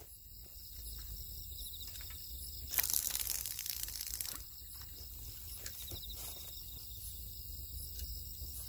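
Night crickets chirring steadily. About three seconds in, a brief rustling noise lasting a second or so rises over them.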